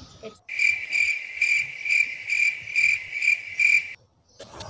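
Cricket chirping sound effect: a high, even chirp repeating about twice a second, starting abruptly and cutting off dead near the end, the stock 'awkward silence' gag.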